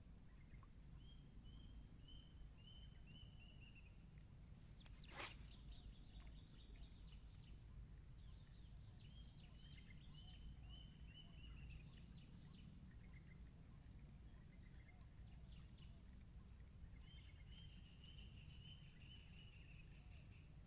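Faint, steady high-pitched drone of insects, with a bird calling a short run of falling chirps three times. A single sharp click about five seconds in.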